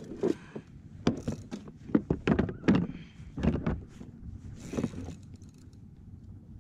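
Irregular knocks and thumps on a plastic fishing kayak, several loud ones about a second apart, thinning out near the end.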